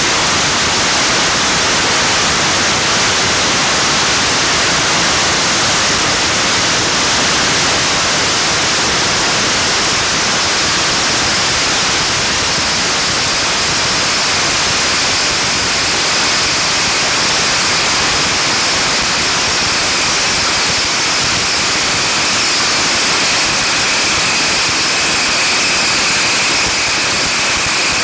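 Thousands of bottle rockets firing at once from a two-storey beehive rocket tower, merging into one unbroken, dense hiss and crackle with no gaps. A steady high whistling tone joins in over the last few seconds.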